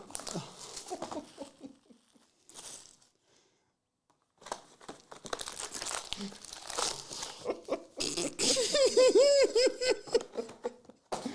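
Plastic card-pack wrappers crinkling and tearing as trading-card packs are opened and handled, with a short pause partway through. Near the end a person laughs for about two seconds.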